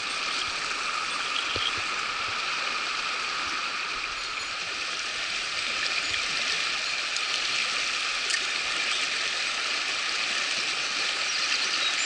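Snowmelt-fed mountain headwater stream rushing over boulders in small cascades, a steady hiss of whitewater.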